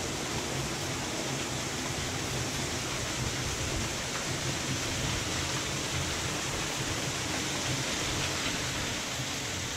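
Steady rush of water from a small stream running among limestone boulders.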